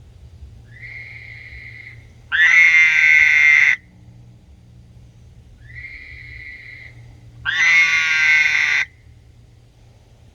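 Two frogs calling back and forth. A quieter, steady-pitched call twice alternates with a much louder, rasping call twice, each about a second and a half long and about five seconds apart.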